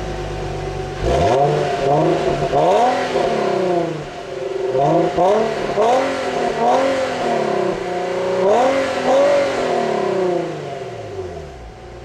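2009 Infiniti FX35's 3.5-litre VQ35HR V6 heard at its dual exhaust tips. It idles, and from about a second in it is revved in a string of quick throttle blips, each rising and dropping back. Near the end it settles back toward idle.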